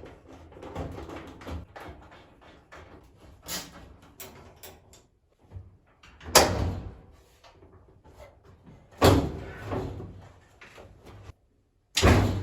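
Dryer cabinet being taken apart: rattling and handling of its parts, then three loud knocks about three seconds apart, each ringing briefly.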